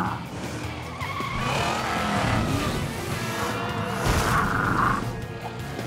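Cartoon sound effects of monster trucks driving fast, with tyres skidding, over action background music.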